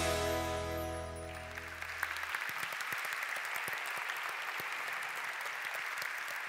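Music fading out over the first two seconds, giving way to an audience clapping steadily.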